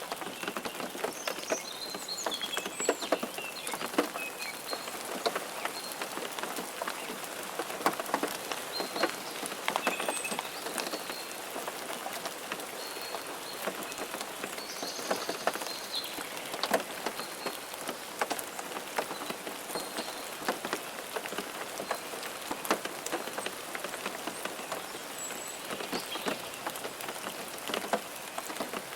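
Steady rain falling, with many individual drops heard hitting a surface close by.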